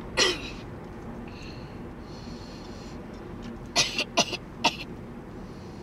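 A person coughing: one short cough just after the start, then a quick run of about four coughs near four seconds in, over the steady hum of a car cabin.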